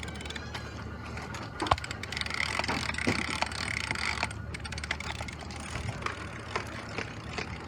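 Scattered mechanical clicks and knocks, one sharper knock about two seconds in, over a steady low rumble.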